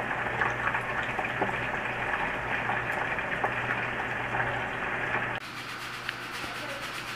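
Chicken skins deep-frying in hot oil in a pot, a steady sizzle with many small crackles and pops. About five seconds in it cuts off suddenly and gives way to a quieter, even hiss.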